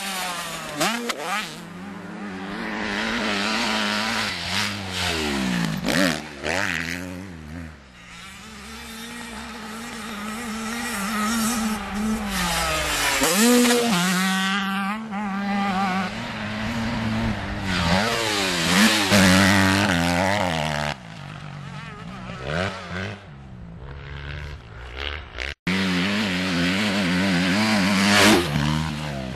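Motocross bikes revving hard and riding past, the engine pitch climbing and falling again and again with throttle and gear changes. The sound breaks off for an instant about three-quarters of the way through, then carries on.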